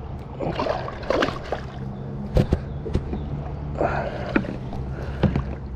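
Water splashing and sloshing as a big snook is held by hand at the surface, with a few sharp knocks and a steady low hum underneath.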